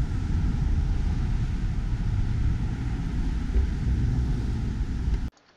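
Steady low rumbling noise of outdoor background, like wind or distant traffic, that cuts off abruptly near the end.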